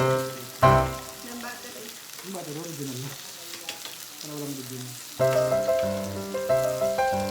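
Pork belly sizzling on a grill, a steady hiss, under background music. The music has a quieter, wavering passage in the middle and comes back fully about five seconds in.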